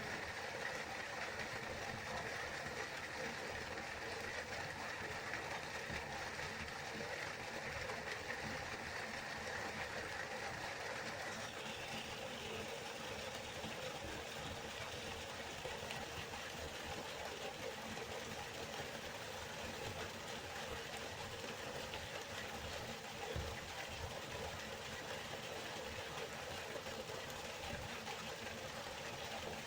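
River water flowing in a steady, even rush. About a third of the way through, its tone shifts slightly brighter.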